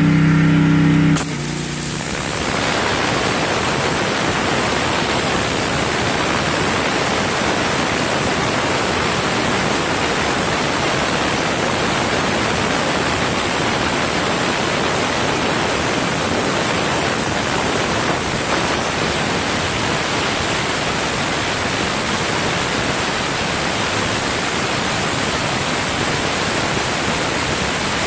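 Husqvarna 3200 gas pressure washer engine running. About a second in, the turbo nozzle's spinning jet of water opens up on concrete: a loud, steady hiss of spray that covers the engine.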